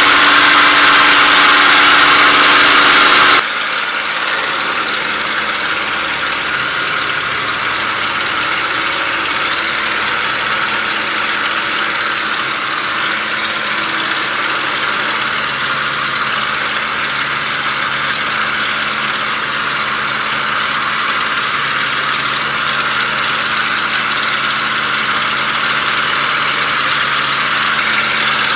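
P-51 Mustang's V-12 piston engine running at high power in flight, heard from the cockpit as a steady drone with propeller and air noise. About three seconds in the sound drops abruptly to a lower, duller level and then holds steady, growing slightly louder near the end.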